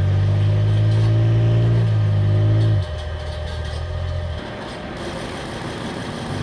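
Simulated engine sound from a radio-controlled model military vehicle's sound unit: a steady low hum that drops in level about three seconds in and cuts off about four and a half seconds in.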